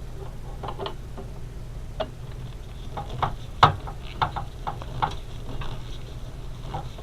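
Irregular light clicks and taps of a motherboard and its metal heatsink backplate being worked into place in a desktop computer case, with one sharper knock about three and a half seconds in.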